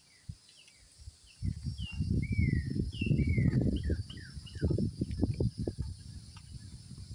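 Birds calling in a quick series of short downslurred chirps over a steady high insect drone. A loud, uneven low rumble on the microphone runs through the middle few seconds.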